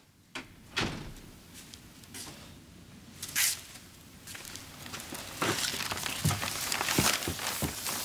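A door opening, then a man's footsteps across a room and the rustle of newspaper pages. A louder noisy sound comes about three and a half seconds in, and the steps and rustling get busier over the last few seconds.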